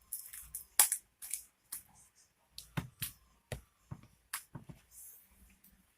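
Hands squishing and stretching sticky homemade slime: irregular wet clicks and crackles, the loudest about a second in.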